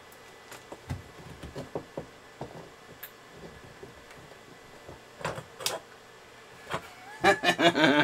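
Scattered faint clicks and taps of a computer power-supply cable and its plastic connector being handled, with two sharper clicks a little past halfway. A man's voice starts briefly near the end.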